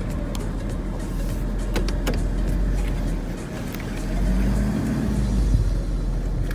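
Ford pickup truck driving slowly, heard from inside the cab: a steady engine and road rumble with a few light clicks, the engine note swelling briefly about four seconds in.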